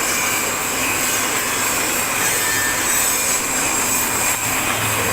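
Wood pellet mill running steadily, a loud, even machine noise; a low steady hum comes in near the end.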